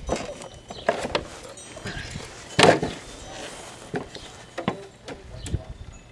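Scattered clicks and knocks of hand tools working on a lawn mower engine, with one louder knock about two and a half seconds in.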